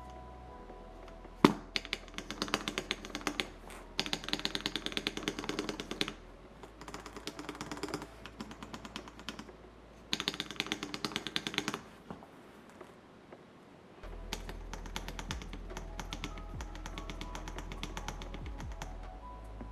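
Stabilized keys on a custom 60% keyboard build, fitted with Cherry MX Black linear switches and lubed, holee-modded screw-in stabilizers, pressed over and over in runs of rapid clacks to test the stabilizers for rattle. There is one sharp, louder click about a second and a half in. Background music plays underneath.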